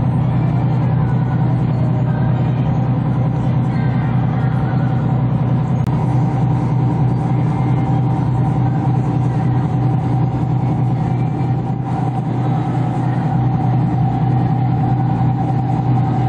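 Large boat's engines running with a steady low drone that holds its pitch throughout.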